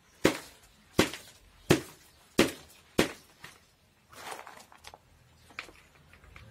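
A plastic flower pot packed with orchid bark mix is knocked down on a table five times, evenly spaced, to settle the mix around the roots. About four seconds in comes a short rustle of bark chips being scooped by hand.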